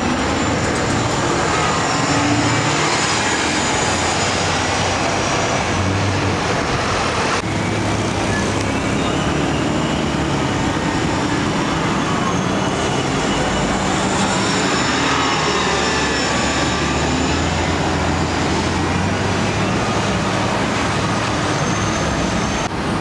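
Hybrid-electric city bus passing close by, its engine running over steady street traffic noise. Faint whines rise and fall in pitch.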